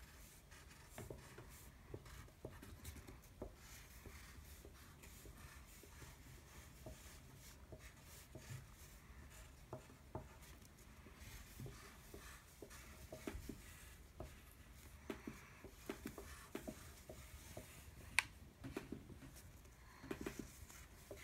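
Faint scratching and tapping of an oil pastel stick on construction paper as short dashes are drawn, in small irregular strokes, with one sharper click near the end.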